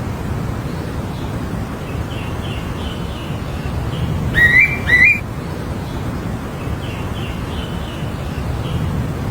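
A wild bird calling: two loud, short, rising whistles about half a second apart near the middle, with fainter chirps before and after them, over a steady low rumble.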